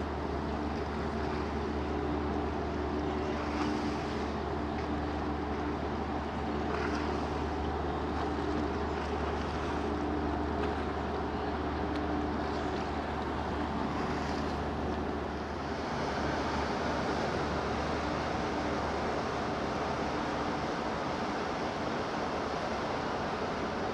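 Steady low hum of a large ship's machinery, with a few steady tones in it, under wind and water noise. The tones fade out about two-thirds of the way through, and the low hum eases soon after.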